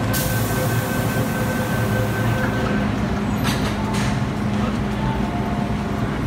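MTR M-Train doors and platform screen doors closing: a steady door-closing warning tone sounds for about three seconds, then the doors shut with knocks about three and a half seconds in, over a constant station and train hum.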